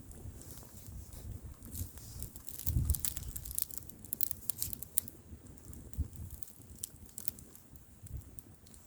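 Wood bonfire burning, crackling with frequent sharp pops, while gusts of wind rumble low on the microphone, the strongest about three seconds in.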